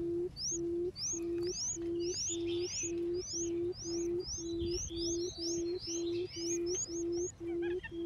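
Barred buttonquail giving its low booming 'um' call, one short steady hoot about twice a second, the call used as a lure to draw other buttonquails. High, quick chirps sound above it and stop a little before the end.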